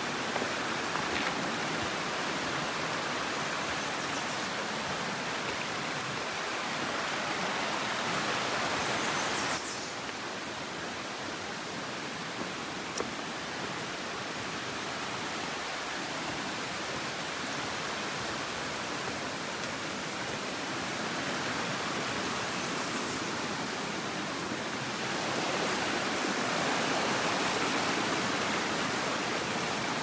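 Snowmelt-swollen mountain creek rushing steadily. The sound drops suddenly about ten seconds in and grows louder again near the end.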